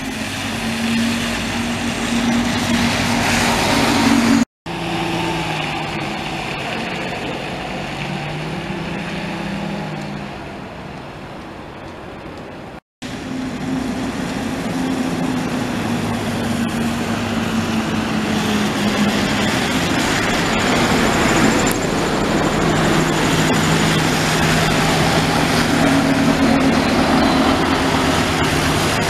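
Diesel buses pulling away and passing close by, engine note rising and falling as they move off. The sound cuts out abruptly twice.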